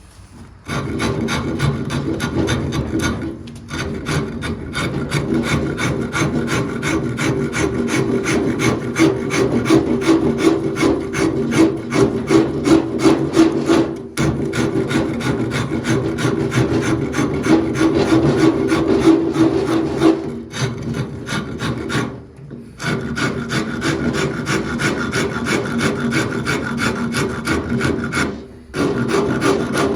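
A file or rasp worked rapidly back and forth over wood in steady strokes, stopping briefly a few times.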